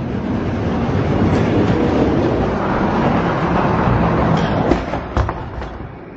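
Die-cast monster trucks rolling fast down an orange plastic Hot Wheels track, a loud rattling rumble of wheels on plastic that builds in the first second. Two sharp clacks come near the end, and then the rumble dies away.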